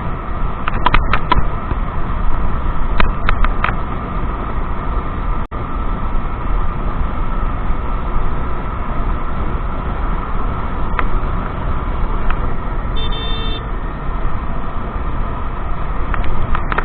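Strong wind buffeting the microphone over the running noise of a moving scooter, with a short vehicle horn honk about three-quarters of the way through.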